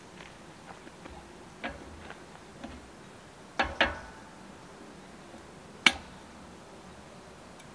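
A few light knocks and clinks of camp dishes being handled, with a close double knock about three and a half seconds in and a single sharp clink near six seconds.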